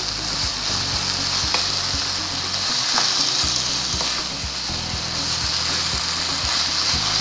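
Shredded chicken filling in sauce sizzling steadily in a ceramic-coated wok as it is stirred with a wooden spatula, with a few light scrapes of the spatula against the pan.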